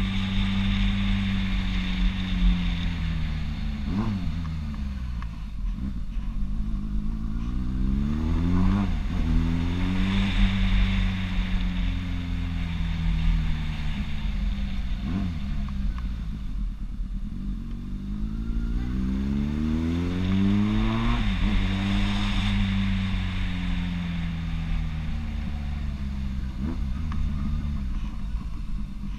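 Motorcycle engine running while riding, heard from the bike itself; its pitch falls and rises again several times as the engine speed drops and picks up between gear changes.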